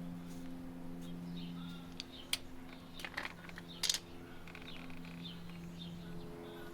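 Small birds chirping over a steady low hum, with three sharp clicks around the middle.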